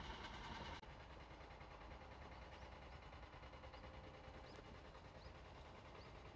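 Near-silent outdoor ambience: a faint low, steady rumble with a few faint, short, high chirps that rise in pitch, scattered irregularly from about two seconds in. A louder hiss cuts off abruptly less than a second in.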